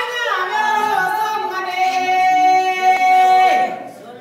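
A woman singing: a falling phrase at first, then one long high note held for over a second that trails off near the end.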